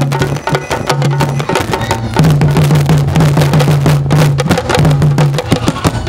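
Live percussion music: drums and sharp wooden clicks in a fast, dense rhythm over a repeating low note pattern that grows stronger about two seconds in.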